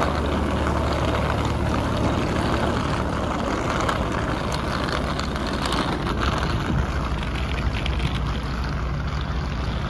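Steady low mechanical drone of airport apron machinery around a parked airliner, with a broad rushing noise over it.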